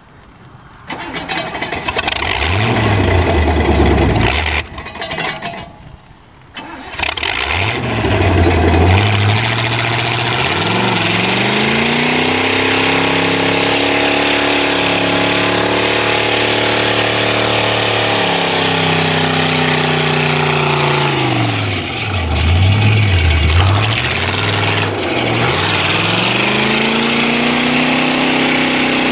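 Car engine cranked twice, catching on the second try about nine seconds in, then running with the revs rising, holding, and falling back, dipping low twice near the end.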